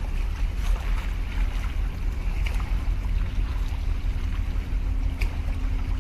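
Wind buffeting the microphone in a low, unsteady rumble, over a faint wash of sea water against concrete breakwater blocks. A faint steady hum comes up a little stronger about five seconds in.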